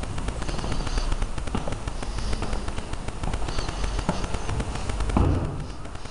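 Crackling rumble of handling and wind noise on a hand-held camera's microphone as it is carried on foot, with a few dull thumps about one and a half, four and five seconds in.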